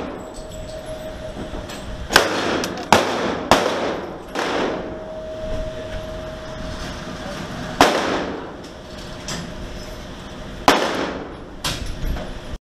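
Pistol shots from a custom 9mm Glock-pattern pistol built on a Lone Wolf Timberwolf compact frame with a Suarez V5 slide, fired at an indoor range. There are about six shots in uneven groups, the first three quickly one after another, each echoing off the range walls. The sound cuts off abruptly near the end.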